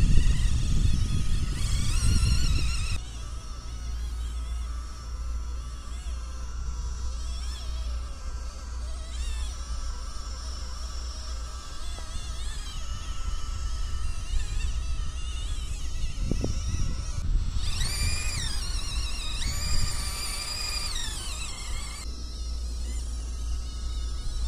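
Electric drive and WPL gearbox of a small RC tractor whining, the pitch wavering up and down as the throttle changes, most strongly near the end. A heavy low rumble fills the first few seconds.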